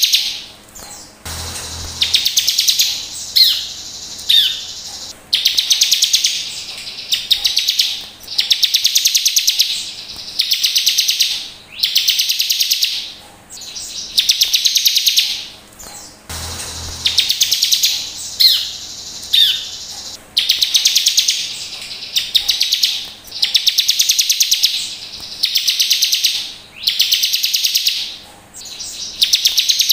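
Bar-winged prinia (ciblek) singing: loud, high, rapid trills about a second long, repeated every second or two, with a couple of short sliding whistles among the first few. The same passage of song comes round again about halfway through.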